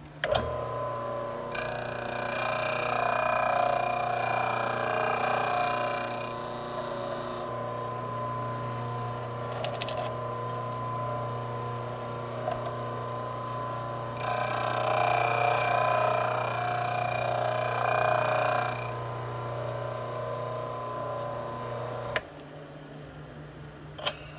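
Electric motor of a home-built drill bit sharpener switched on, running its grinding wheel with a steady hum. Twice, about two seconds in and again about fourteen seconds in, a drill bit in the collet jig is pressed to the wheel for about five seconds, giving a loud, high-pitched grinding whine as a facet is ground onto its point. The motor is switched off a couple of seconds before the end.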